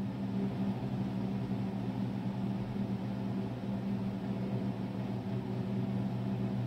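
Steady low mechanical hum, like a running fan or appliance motor, with no change across the whole stretch.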